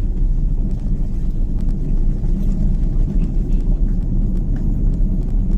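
Steady low rumble of a vehicle moving slowly, with engine and road noise and a few faint clicks.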